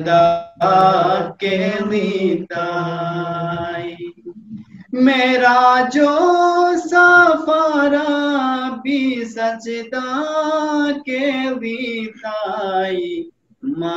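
A man chanting a Khowar naat, a devotional poem, in a slow, melodic voice without accompaniment, holding long notes that step up and down. There is a short break about four seconds in and another near the end.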